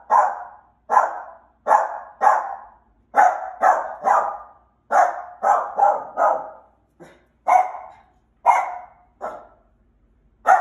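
Small dog barking over and over at a person, short sharp barks often in quick runs of two or three, about fifteen in all, pausing for about a second near the end. It is reactive barking at people, the behaviour being trained out of it.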